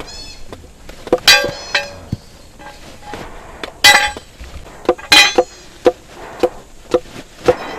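Blacksmith's hammer striking metal, a dozen or so blows at an uneven pace, the heaviest ones ringing with a high metallic tone.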